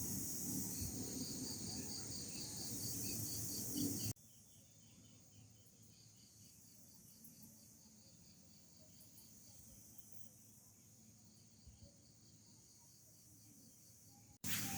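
Insects chirping outdoors in a steady run of short, high pulses, about five a second, over faint background noise. About four seconds in, everything drops suddenly much quieter, and the chirping carries on faintly.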